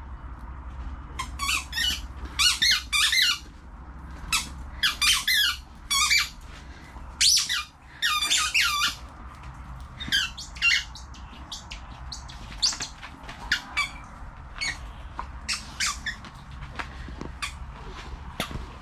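A dog's squeaky ball toy squeaking again and again as the dog chews it: quick runs of high squeaks with short pauses between them.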